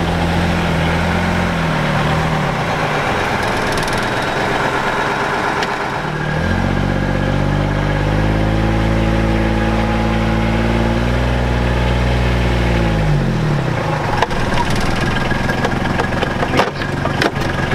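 Tractor engine heard from inside the cab. It drops in speed in the first two seconds, revs up about six seconds in, holds the higher speed for several seconds, then falls back to idle. A few sharp clicks and clunks come near the end as a gear lever is moved.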